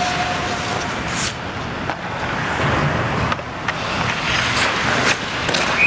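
Ice hockey play: skates scraping and carving on the ice, with scattered stick and body knocks. A referee's whistle starts right at the very end, calling a penalty.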